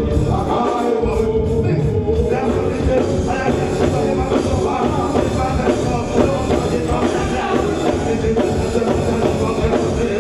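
Live reggae band playing at a steady loud level: drum kit, electric guitar and keyboard, with a male vocalist singing over them.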